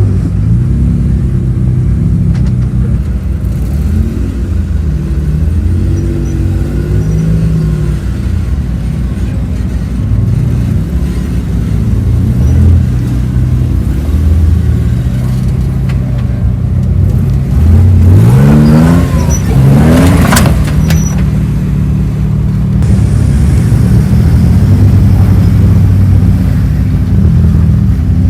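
Engine sound effect for a scale RC offroad truck, a low engine note that rises and falls as it drives, with a sharp rev rising in pitch about two-thirds of the way through.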